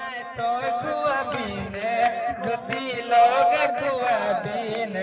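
Music with a singing voice over regular drum beats and a held low drone.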